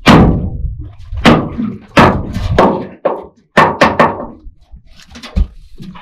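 A run of sharp thumps and knocks, about six of them, the loudest right at the start, as a just-landed flathead is swung aboard on the line and knocks against the aluminium boat.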